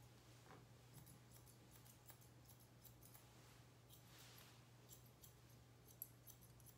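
Faint, irregular snipping of grooming shears cutting through a poodle puppy's coat, over a steady low hum.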